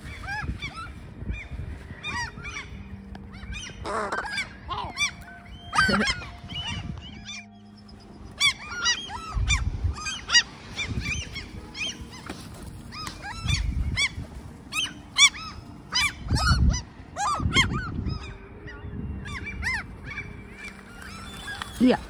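A flock of gulls calling: many short, repeated squealing cries. A few low rumbles on the microphone sound now and then.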